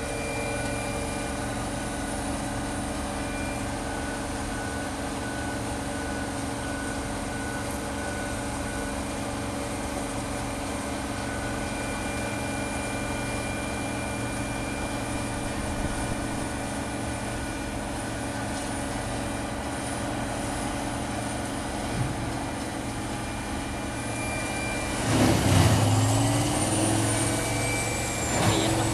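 A heavy wood chipper's engine running steadily. About 25 seconds in it gets louder and rougher and its pitch dips and climbs back, as if the engine is loading while material is fed through.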